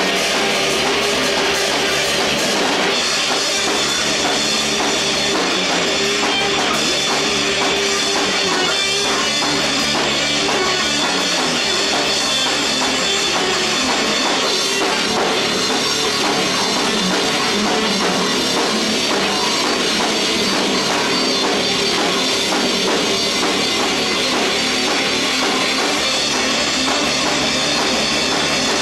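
Rock band playing live at full volume: a drum kit with guitars, a steady loud wall of sound with no pauses.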